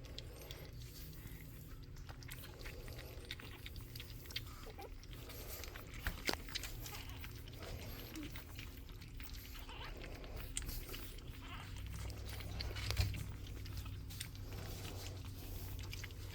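Four-week-old pug puppy making faint grunts and snuffles while feeding, with a few scattered small clicks.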